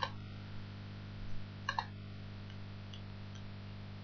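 Faint computer mouse clicks over a steady low electrical hum, the clearest click a little under two seconds in.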